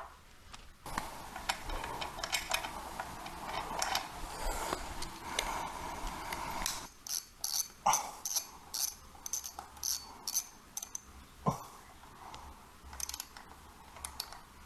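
Hand ratchet wrench clicking in quick runs of about three clicks a second as a fastener is turned on a motorcycle engine, after several seconds of rustling handling noise.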